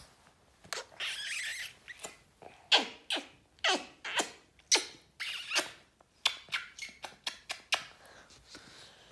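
Short, squeaky kisses and playful mouth sounds from a woman cuddling a baby, about a dozen in quick succession, many of them dropping quickly in pitch.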